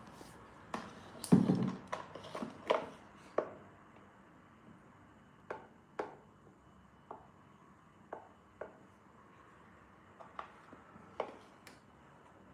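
Scattered sharp knocks and clicks on a tiled floor: a cluster of them with one heavier thump in the first three seconds, then single clicks about a second apart.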